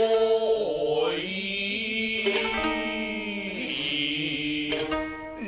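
Kabuki takemoto (gidayū) music: a chanter's voice holds long, wavering notes that slide up and down, with a few sharp shamisen plucks.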